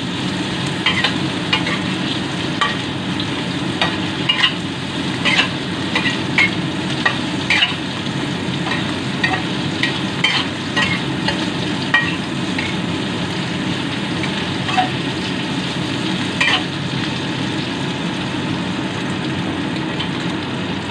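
Salted pork belly sizzling in hot oil in a pan, with a spatula scraping and tapping the pan as the pieces are turned one by one. The spatula strokes come thick for the first half and thin out after about twelve seconds, leaving a steady sizzle.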